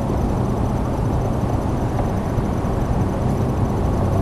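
A boat's motor running steadily with a low, even hum.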